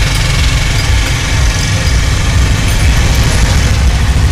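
Steady low rumble of an engine idling in the background, loud and even.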